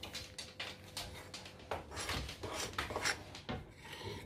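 Metal spoon stirring a thick flour, Nutella and milk cookie dough in a ceramic bowl, scraping and rubbing against the bowl in irregular strokes, a few a second.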